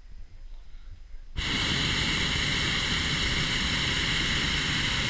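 Hot air balloon's propane burner firing: a loud, steady hiss that comes on suddenly about a second and a half in.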